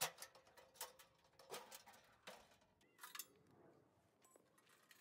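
Light metallic clinks and knocks from a stainless steel rocket stove's lid and parts, and a metal rod, being handled. There are about five short, sharp knocks a second or so apart.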